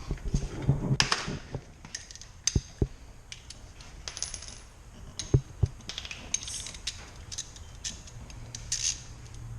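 Irregular metallic clinks, taps and rattles of hand tools and bolts being handled, with a few sharper knocks and some short ringing clinks, as caliper bolts are fitted with an Allen-head tool.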